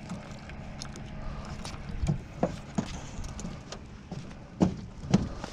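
Footsteps scuffing and knocking in uneven steps, about one or two a second, over a faint steady low hum.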